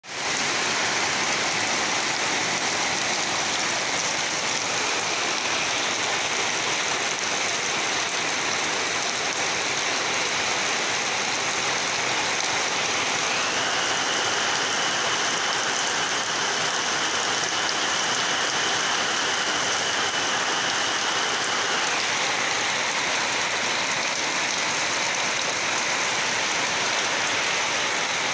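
Heavy, continuous downpour: a steady, even rush of rain. For roughly nine seconds in the middle, a thin, steady high-pitched tone sounds above the rain.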